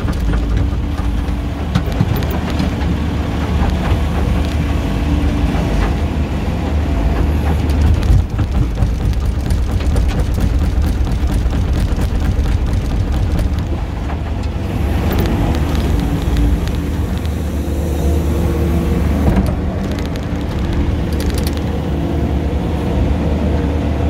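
Kubota SVL95 compact track loader's diesel engine running steadily at working speed while loading a dump truck, with a few short knocks through it.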